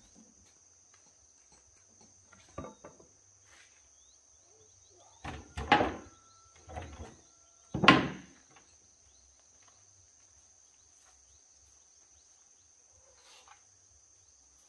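A few scattered knocks and thuds, the loudest a pair about six and eight seconds in, over a steady high-pitched tone.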